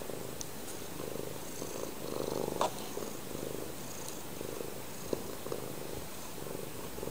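Domestic cat purring close up, a steady rasp that swells and eases with its breathing, with a few light clicks and a sharp click about two and a half seconds in.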